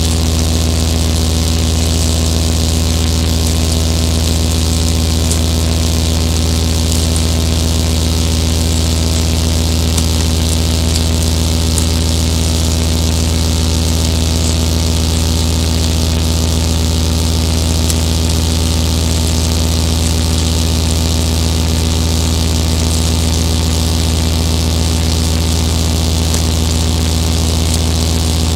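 Electronic drone music from a patch-cabled synthesizer setup: a loud, steady low hum with a layer of hiss above it and a mid-pitched tone that pulses slowly and regularly.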